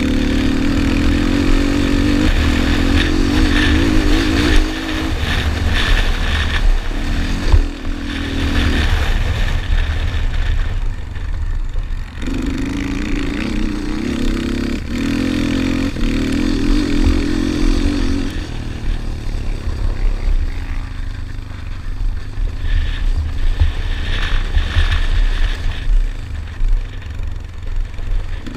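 Yamaha Raptor 250 quad's single-cylinder four-stroke engine ridden hard, held at high revs for stretches of several seconds and backing off a few times in between, heard from a helmet-mounted camera with wind noise.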